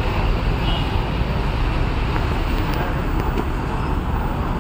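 Busy street ambience: a steady hum of road traffic with indistinct voices in the background.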